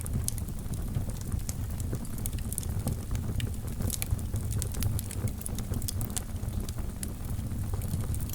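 Wood fire burning in a fireplace: a steady low rumble of the flames with frequent small, irregular crackles and pops.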